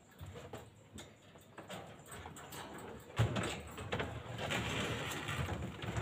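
Scattered clicks and small knocks from objects being handled, then a sharp knock about three seconds in followed by denser scraping and rattling that stops near the end.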